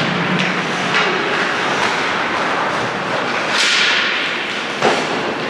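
Ice hockey play on the rink: several sharp knocks of sticks and puck, and a hissing scrape of skates on the ice about three and a half seconds in, over the steady noise of the arena.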